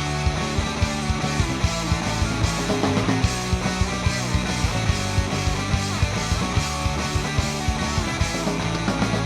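Instrumental rock band playing live: guitar over held bass notes and drums with a steady beat.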